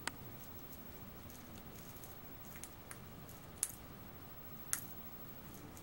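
Green-cheeked conure's beak cracking at a hard plastic bell ball: about six short, sharp clicks at irregular intervals.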